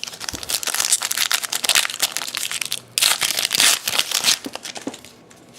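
Wrapper of a Contenders hockey card pack being torn open and crinkled by hand: two long spells of loud crinkling, the second ending about four and a half seconds in, followed by lighter handling.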